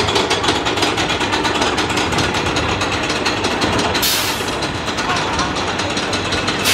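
Roller coaster car being hauled up the chain lift hill: the lift chain runs with a rapid, even clatter of clicks. A short hiss breaks in about four seconds in and again at the end.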